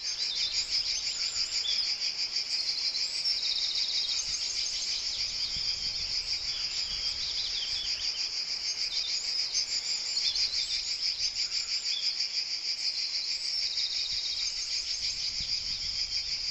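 A dense, steady chorus of insects shrilling in rapid pulses, with a few bird chirps over it; it starts abruptly.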